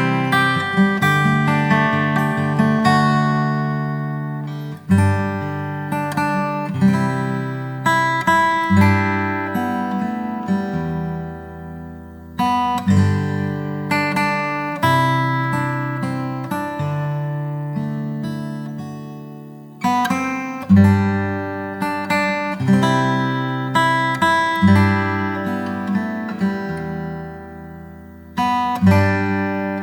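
Background music: acoustic guitar picking and strumming chords in phrases that swell and fade every few seconds.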